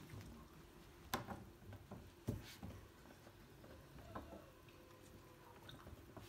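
Quiet room with a few soft knocks and ticks, the two sharpest at about one and two seconds in, over a faint steady hum.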